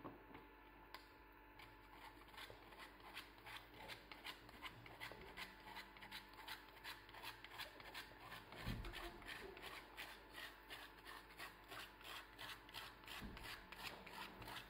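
Chocolate rubbed across a small handheld grater: faint, rhythmic rasping strokes, about three or four a second, starting about two seconds in, with a couple of soft low bumps.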